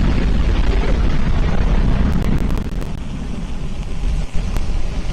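Firefly Alpha rocket's first-stage engines rumbling during ascent: a heavy, deep noise with a light crackle, whose higher part thins out about three seconds in.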